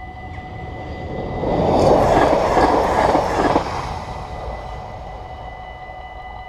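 A Stadler GTW electric multiple unit passes over a level crossing. Its noise swells over about a second, peaks with a few wheel clacks, then fades within a couple of seconds. The crossing's warning bells ring steadily throughout.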